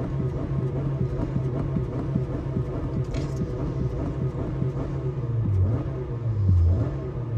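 Car engine running steadily, then revved in louder swells near the end.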